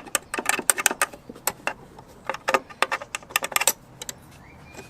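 Rapid, irregular metallic clicks and taps of a tool against the hinge and panel while the hinge's bolt holes are marked out, stopping near the end.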